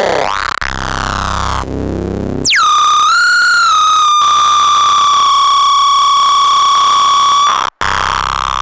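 Eurorack modular synthesizer tone through a Doepfer A-189-1 bit crusher, its timbre reshaped as knobs are turned. A dense, shifting buzz gives way to a very high tone, which glides steeply down about two and a half seconds in and settles into a steady bright pitched tone. The tone drops out for an instant near the end.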